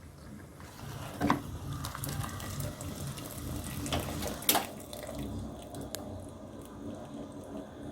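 Tap water running into a sink, with two sharp clinks, about a second in and again about four and a half seconds in.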